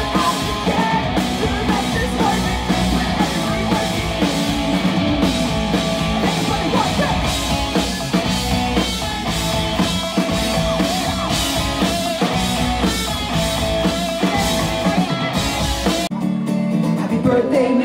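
Live rock band playing loudly, with electric guitars, a drum kit with steady beats and crashing cymbals, and a singer. Near the end the drums and cymbals stop abruptly and a thinner sound is left.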